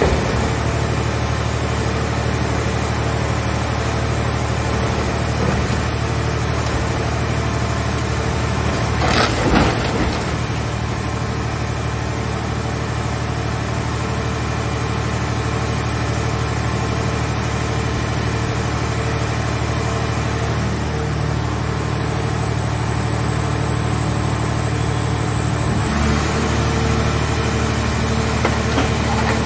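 Scrap car baler's hydraulic power unit running with a steady low hum and a thin high whine. About nine seconds in there is a short crunch of the car body in the press, and a few seconds before the end the machine's sound changes and grows louder as it works.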